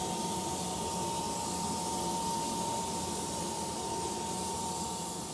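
Whole-body cryotherapy chamber hissing steadily as it releases nitrogen vapour, with a steady high hum running under the hiss, beginning to fade near the end.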